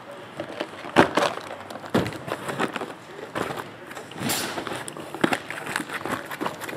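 Trading-card boxes and cards being handled on a table: a string of sharp taps and clicks, with a brief rustle a little past four seconds in.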